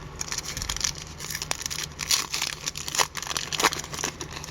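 Wrapper of a hockey card pack crinkling and tearing as it is opened, with irregular crackles and a few louder snaps in the second half.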